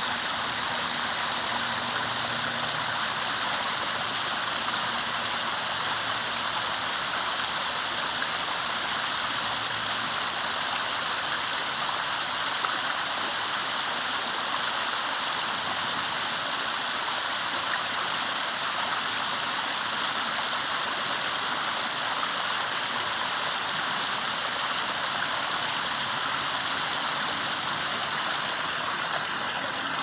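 Small waterfall pouring over rocks: a steady rush of falling water.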